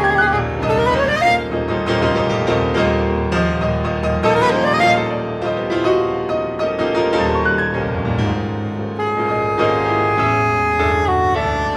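Soprano saxophone and two pianos playing contemporary chamber music: busy piano chords with quick rising runs and held tones.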